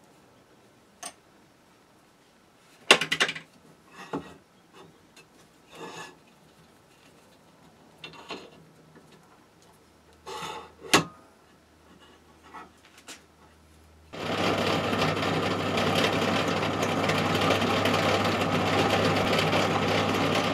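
Knocks and clicks of a steel machine vise being shifted and set on a pillar drill's cast table. About two-thirds in, the drill press runs steadily and loudly as a small drill cuts a starting hole in the metal engine column.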